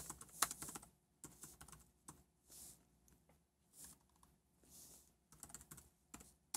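Faint typing on a computer keyboard: a quick run of keystrokes in the first second, then scattered single keystrokes as a typo in the text is corrected.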